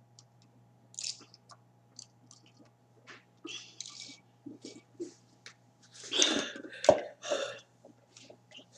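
Small wet mouth clicks and sips from a person drinking soda, then a louder breathy sound from the throat about six seconds in.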